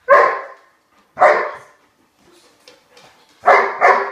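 Doberman barking, four short loud barks: one at the start, one a little after a second, then two in quick succession near the end.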